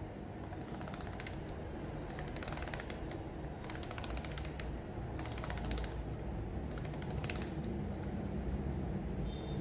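Keys of a Dell Latitude 3189 laptop keyboard being pressed in quick runs of light plastic clicks with short pauses between, each key tried in turn in a keyboard test.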